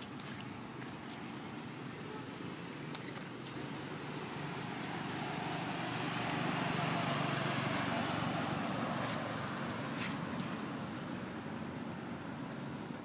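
A road vehicle passing by: its noise swells, is loudest about halfway through, then fades away.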